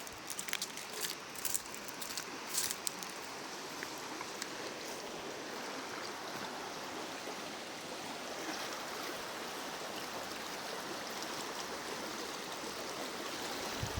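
River water flowing, a steady rushing sound. A scatter of sharp clicks comes in the first three seconds.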